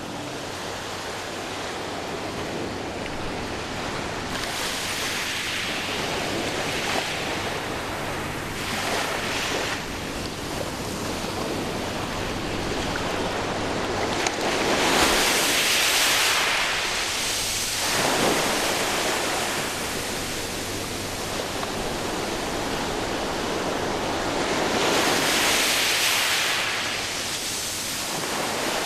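Recorded sound of ocean surf: a steady wash of noise with waves swelling up and washing in three times, about ten seconds apart.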